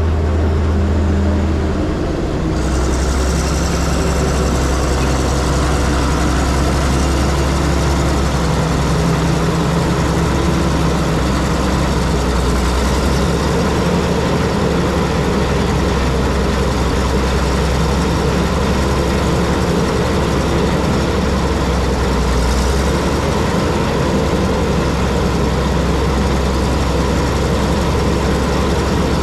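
Cat D6 bulldozer's diesel engine running steadily. Its note shifts about two seconds in and then holds.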